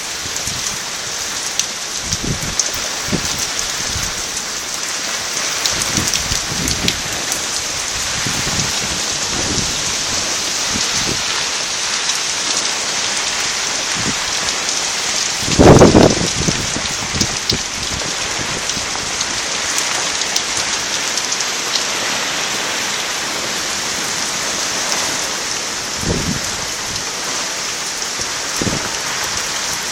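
Heavy rain and hail pelting down in a steady hiss with many sharp little hits, in a strong wind. Low rumbling gusts come and go, the loudest one about halfway through.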